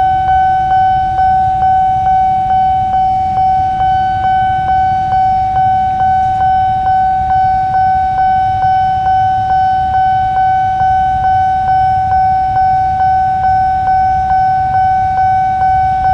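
Railway level-crossing warning bell ringing in a fast, even rhythm of about two and a half strokes a second: the crossing is active, warning of an approaching train. A low rumble of idling traffic lies beneath it.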